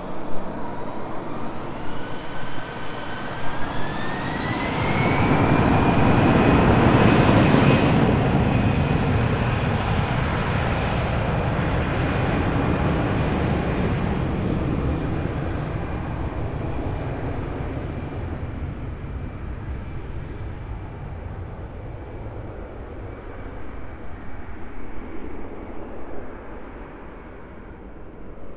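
Airbus A320-family twin-jet airliner spooling its engines up for the takeoff roll. A whine climbs in pitch over the first few seconds and the engine noise swells to its loudest about seven seconds in. It then fades slowly as the jet rolls away down the runway.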